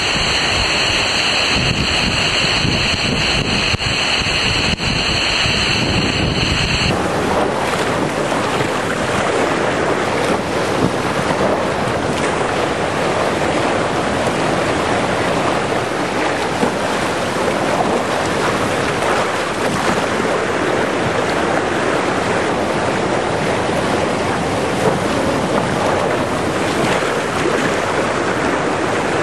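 Steady rush of water with wind noise on the microphone, as on a water coaster slide. A high steady hiss drops away about seven seconds in, leaving an even rush.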